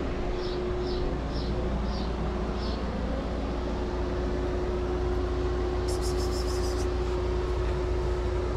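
Steady low mechanical hum with a constant tone under a background hiss. Five short high chirps come in the first three seconds, and a brief rapid high ticking about six seconds in.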